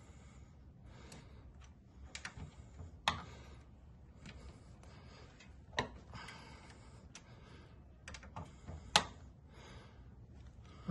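Scattered sharp metal clicks and clinks of a socket and breaker bar being fitted onto motorcycle frame bolts, with three louder clicks about three seconds apart.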